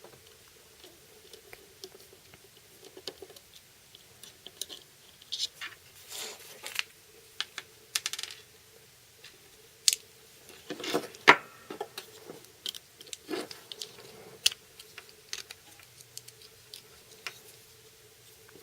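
Scattered small clicks and taps from a Torx driver and the parts of a Spyderco Byrd Cara Cara folding knife with an FRN handle as the pivot is taken apart. The loudest cluster of clicks comes about halfway through, over a faint steady hum.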